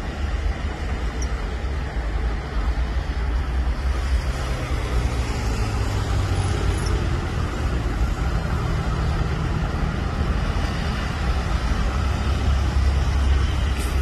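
Steady city road traffic at a roundabout: cars, motorcycles and a minibus passing, a continuous mix of engine hum and tyre noise.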